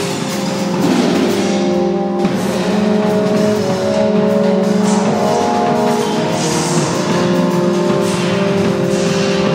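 Loud live experimental drone-noise music: several held electronic tones over a dense noisy texture, with drum and cymbal sounds mixed in and swells of high hiss about two-thirds of the way through and near the end.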